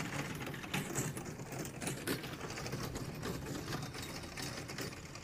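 Golf cart towing a train of barrel cars across grass, with a rapid, steady mechanical chatter.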